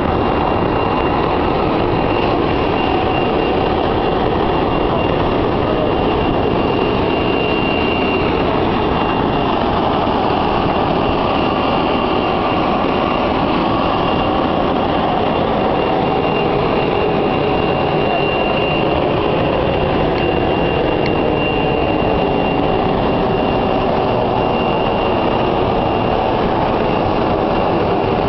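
Boeing 737-300's auxiliary power unit in the tail cone running: a loud, steady turbine rush with a constant high whine.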